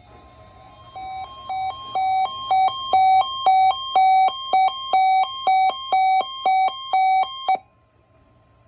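NOAA weather radio receiver's alert alarm going off, set off by the weekly test: a fast run of beeps, about three a second, over a steady tone. It grows louder over the first couple of seconds and cuts off suddenly about seven and a half seconds in.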